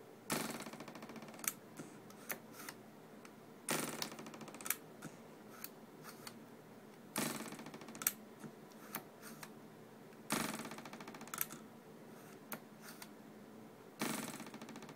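TIME TH170 Leeb rebound hardness tester being cocked and fired on a steel test block five times, about every three and a half seconds. Each reading is about a second of rapid fine clicking, with single sharp clicks in between.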